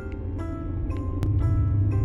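Background music: light pitched notes struck about twice a second, over a steady low rumble.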